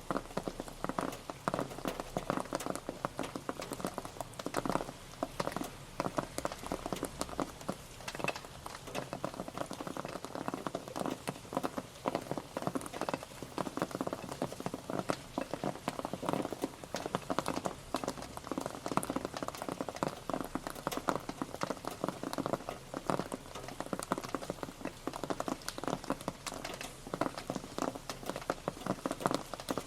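Steady rain pattering on a surface: a dense, continuous spray of individual drops.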